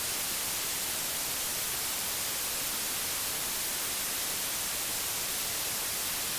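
Steady static hiss, level and unchanging, strongest in the treble: dead air on a broadcast channel standing by for a message.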